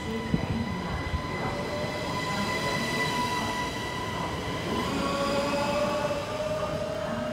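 Siemens Desiro ML (NMBS MS08) electric multiple unit pulling out of the station. It gives a steady high electric whine, and from about halfway through a lower tone rises slowly in pitch as the unit accelerates.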